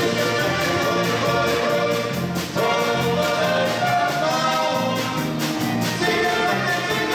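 Live dance band with accordions, electric guitars and drums playing a polka-style potpourri, steady and loud, with a brief dip about two and a half seconds in.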